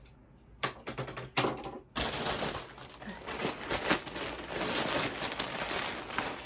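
A few sharp clicks from a pair of large scissors, then a thin plastic mailer bag crinkling and rustling continuously as it is handled and opened.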